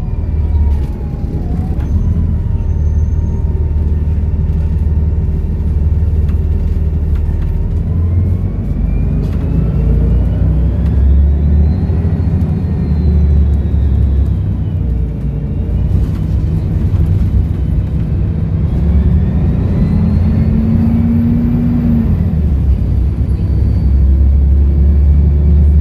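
Volvo B7RLE bus's seven-litre straight-six diesel running under way, with a steady low rumble. A high turbocharger whistle rises and falls several times over it as the bus pulls and eases off.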